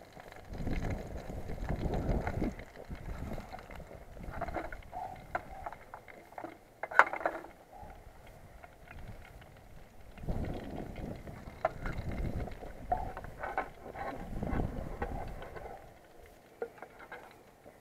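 Handling clatter of an aluminium mess tin and its clip-on pot grip as it is lifted, with scattered light metallic clicks, one sharp clack about seven seconds in, and knife-on-tin clicks as a burger is worked out of it. Low rumbling gusts of wind on the microphone come and go three times.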